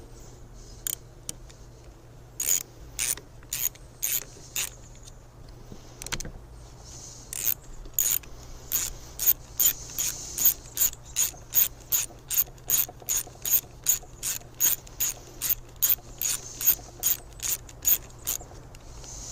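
Socket ratchet wrench with an 8mm socket clicking as it is worked back and forth. It starts with a few scattered clicks, then runs in an even train of about three clicks a second.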